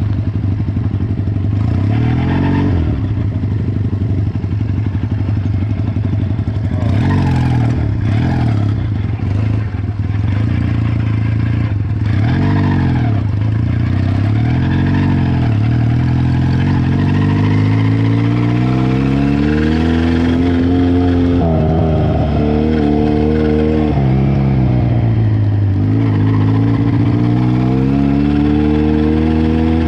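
Cafe racer motorcycle engine running under load on an offroad ride, its note repeatedly climbing and dropping as the throttle is opened and closed through the gears. There is clattering from the rough ground in the first half.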